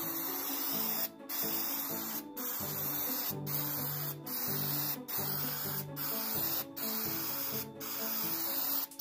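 Aerosol can of Krylon hammered black spray paint hissing in spray after spray, each about a second long with a short break between. Background music plays underneath.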